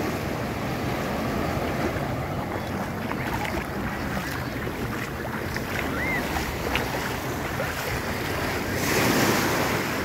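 Surf washing onto the beach, with wind buffeting the microphone; a wave swells louder about nine seconds in.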